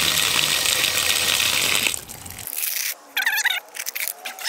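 Water running from an outdoor spigot and splashing onto the ground and bucket, cutting off about two seconds in. After it, a few light metallic clicks of steel sockets knocking together in a plastic bucket, and a brief high wavering call about three seconds in.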